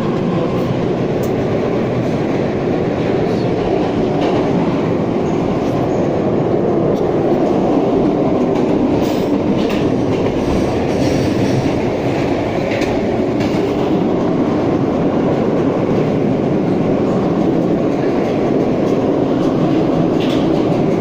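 Moscow Metro train running through a tunnel, heard from inside the car: a steady, even rumble of wheels and motors with a few faint clicks from the rails.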